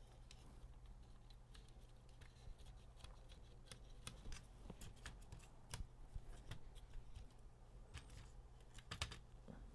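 Faint, scattered clicks and light taps from small plastic panel parts and a circuit board being handled during reassembly, over a low steady hum.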